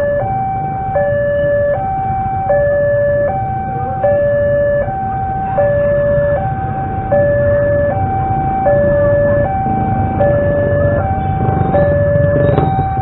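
Railway level-crossing warning alarm: an electronic two-tone signal switching back and forth between a lower and a higher note about every three-quarters of a second. It warns that a train is approaching.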